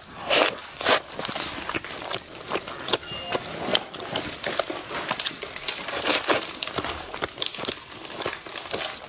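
Close-miked chewing of a soft pistachio cream bun: a dense, irregular run of small wet clicks, smacks and crackles from the mouth.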